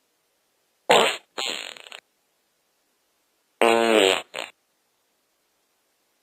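Fart sounds in two groups with dead silence between. About a second in, a short loud blast is followed by a weaker sputter that trails off. Near the middle, a longer buzzing, pitched fart ends in a brief final puff.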